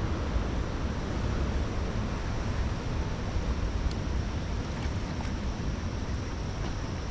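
Steady outdoor rumble and hiss, heaviest in the low end and flickering in level like wind buffeting the microphone, with a few faint ticks in the middle.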